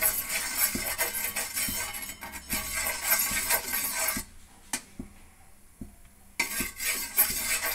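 Metal ladle scraping and clinking against an iron dosa tawa as oil is rubbed over its surface, in quick irregular strokes. The scraping drops away for about two seconds in the middle, then starts again.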